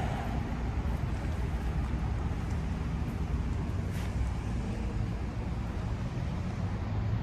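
Steady low rumble of road traffic, with a faint click about four seconds in.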